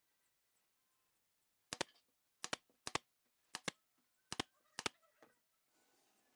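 Sharp knocks or taps, mostly in quick doubles, six of them over about three seconds, followed by a short faint rustle near the end.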